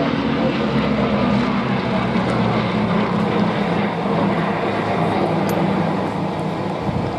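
Bristol Blenheim's two nine-cylinder Bristol Mercury radial engines running steadily as the aircraft flies past, a continuous propeller drone.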